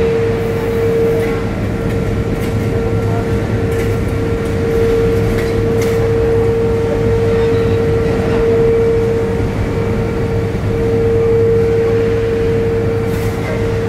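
Steel melt shop machinery running during an induction furnace tap: a loud, steady hum with one strong high tone over a dense rumble.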